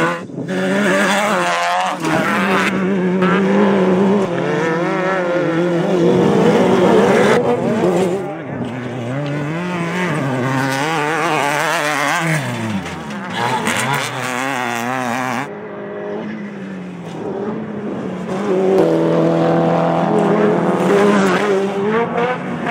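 Off-road race vehicles' engines revving hard, the pitch rising and falling again and again, in a run of short clips cut one after another.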